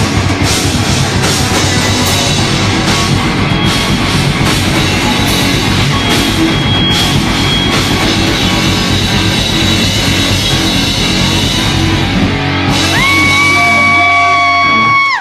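Live heavy rock band playing loud: distorted electric guitars, bass and a drum kit. About 13 seconds in the drums stop and one high guitar note slides up and is held, ringing steady until it cuts off suddenly as the song ends.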